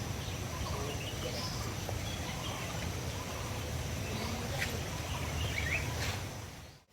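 Forest ambience: a steady low rush with a few short bird chirps and a thin, steady high insect tone, fading out just before the end.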